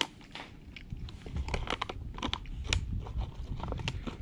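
A person eating stew, chewing close to the microphone, with a run of short irregular clicks and crinkles from a whittled wooden spork and the foil food pouch.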